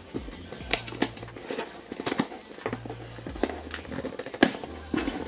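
Taped cardboard shipping box being pried and torn open by hand: irregular scrapes, rips and small knocks of cardboard and packing tape, with the box resisting.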